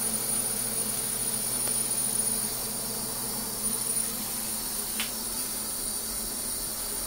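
Water running steadily from a handheld shower head into a bathtub, a continuous hiss with a faint low hum under it. A light knock comes about five seconds in.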